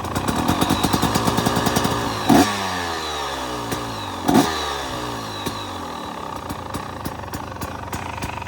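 2023 KTM 250 XC two-stroke engine breathing through an FMF Turbinecore 2.1 silencer. It idles with an uneven popping, revs up, then is blipped sharply twice, the revs falling away after each blip before it settles back to idle.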